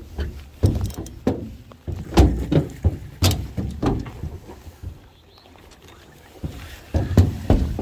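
Irregular thumps and knocks on a metal boat's hull and deck, feet and fishing gear striking it, in two bursts with a short lull between.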